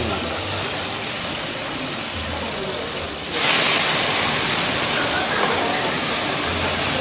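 Tall flambé flames over a board of steaks burning with a steady rushing hiss, which suddenly grows louder and sharper about three and a half seconds in.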